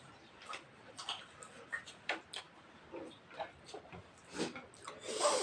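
Close-up eating sounds: irregular chewing clicks and mouth smacks while eating rice and mutton curry, with a louder, longer smacking noise near the end.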